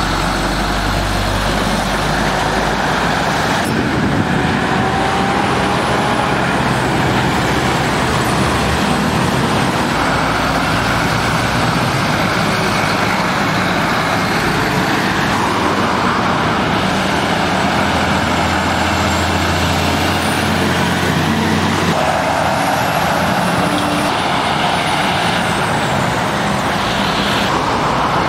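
Heavy lorries driving past at a roundabout one after another: diesel engines running and tyres on the road, a steady traffic sound that changes abruptly a few times as one truck gives way to the next.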